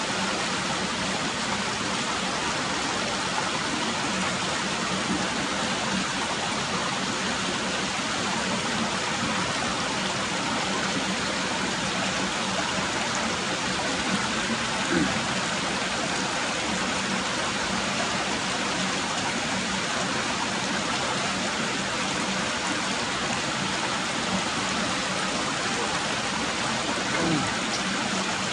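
Steady rushing of river water flowing, an unbroken noise of running water.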